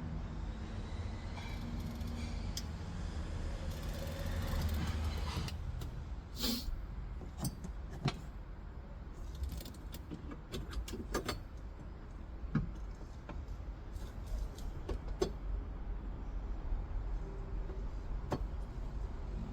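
Scattered light clicks and knocks of small parts and tools being handled, with a brief rustling scrape about four seconds in, over a low steady hum.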